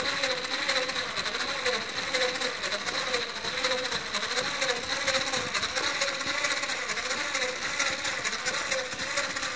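Small electric motors driving the plastic tracks of a Lego crawler-transporter model: a steady whir with a wavering hum and a fast, fine clicking of the track links.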